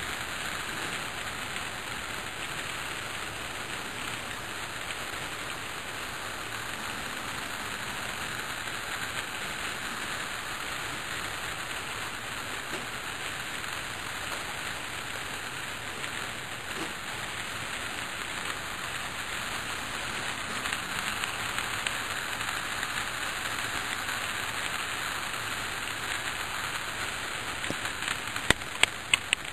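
N gauge freight cars rolling past on model track: a steady, dense rattle of small metal wheels on the rails. Near the end comes a quick run of about four sharp clicks.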